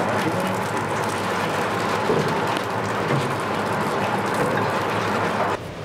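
Food frying in shallow oil in a wok, a steady crackling sizzle that cuts off suddenly near the end.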